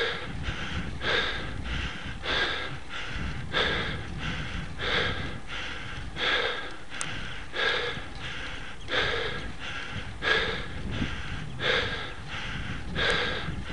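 A cyclist breathing hard and rhythmically while labouring up a steep hill climb, about three breaths every two seconds, over a low rumble.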